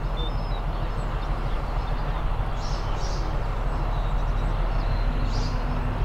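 Diesel engine of an approaching Class 43 HST power car, a steady low rumble as the Blue Pullman set coasts in. Birds chirp faintly a few times above it.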